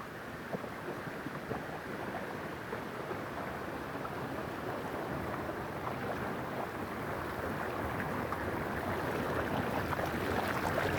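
Steady rush of river water flowing, slowly growing louder.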